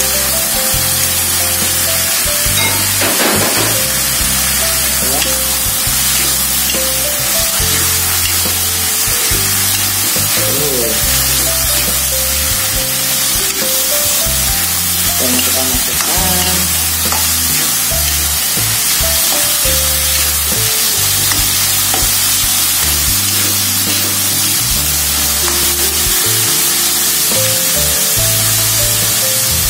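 Beef, onion and petai beans sizzling in a hot oiled wok as they are stirred and turned with a metal spatula, with scrapes of the spatula on the pan. Background music plays steadily underneath.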